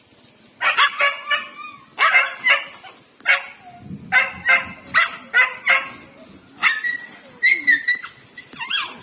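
Dogs barking and yelping in about eight short, loud bursts during a scuffle between dogs, with a longer drawn-out cry a little after two thirds of the way through.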